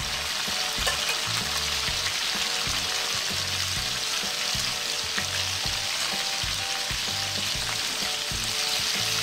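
Shrimp frying in hot oil in a metal wok: a steady sizzle. A metal spatula clicks and scrapes against the wok now and then as the shrimp are turned.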